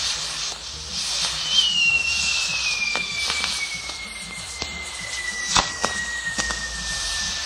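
Castillo fireworks burning: a steady hiss of lances and spinning-wheel jets, broken by a few sharp cracks, the loudest about five and a half seconds in. From about a second and a half in, a long firework whistle slides slowly down in pitch.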